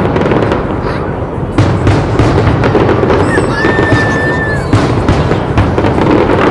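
A large fireworks display, aerial shells bursting in quick overlapping salvos with continuous banging and crackling. A high whistle is held for about a second near the middle, and music plays beneath.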